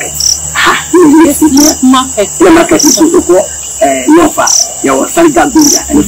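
Crickets chirping in a steady high buzz, with a shorter chirp repeating a little more than once a second, under untranscribed talking.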